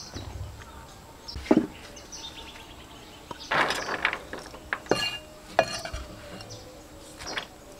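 A few separate sharp knocks and clinks from a cleaver cutting chives on a wooden chopping block and against a metal tray, spaced a second or more apart.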